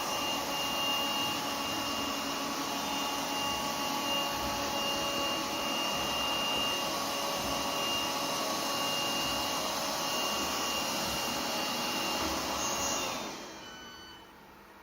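Lefant U180 robot vacuum running steadily with a high whine over its suction noise, then winding down and going quiet about a second before the end.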